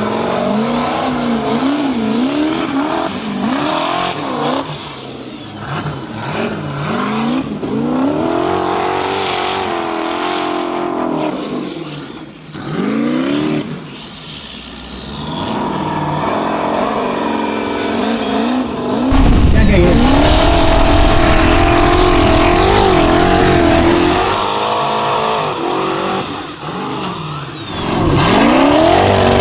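Formula offroad buggy's V8 engine revving hard on a hill climb, its pitch rising and falling again and again as the throttle is worked. It gets louder about two-thirds in.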